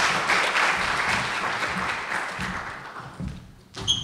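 Audience applause that fades out over a few seconds. A single sharp knock with a brief ringing tone sounds near the end.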